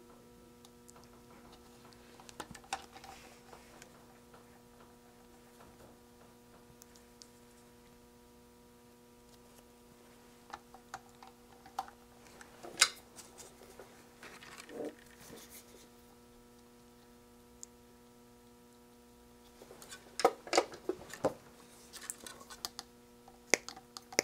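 Scattered light clicks and rattles of small electronic components and tools being handled at a workbench, in a few short clusters, over a steady electrical hum.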